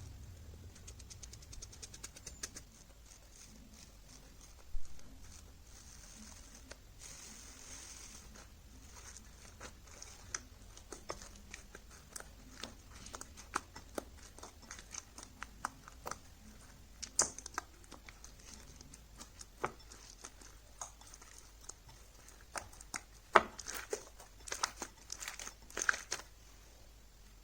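Slime being squished and stretched by hand, giving irregular small clicks and pops, thicker and louder over the last few seconds.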